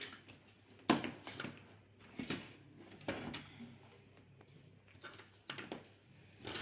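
Handling of speaker wires and small tools on a workbench: a series of separate sharp clicks and short rustles, the loudest about a second in.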